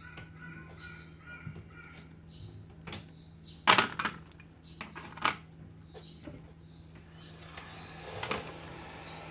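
Several sharp clicks and snaps of small tools and parts being handled during an iPhone 7 screen repair, the loudest a little over a third of the way in, over a steady low hum.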